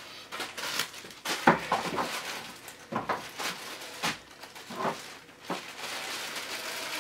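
Clear plastic bag crinkling and rustling as it is handled and opened, with a few sharp knocks and bumps spread through.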